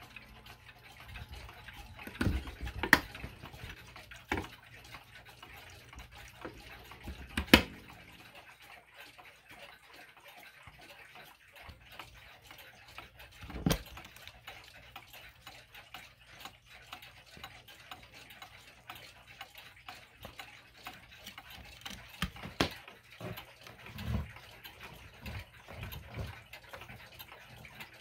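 Several mechanical pendulum wall clocks ticking together, with a handful of louder clicks and knocks as the clock cases, a glass bezel and a wooden pendulum door, are handled.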